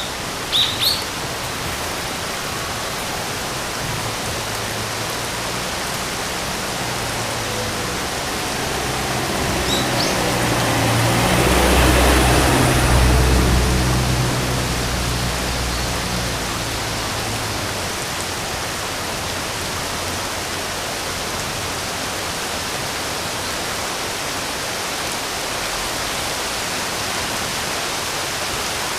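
Steady rain hiss, with a few brief bird chirps in the first second and again about ten seconds in. A low rumble swells up through the middle and fades away again.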